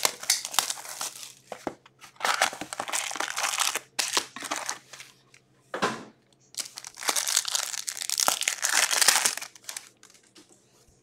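Cardboard card box and foil card packs being handled and opened, crinkling and rustling in three long bursts, with a short knock about six seconds in.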